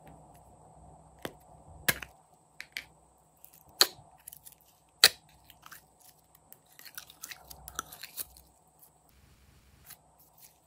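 Green slime squeezed out of a plastic cup and kneaded by hand, giving sharp wet pops and clicks: four loud ones in the first half, then a run of smaller crackles.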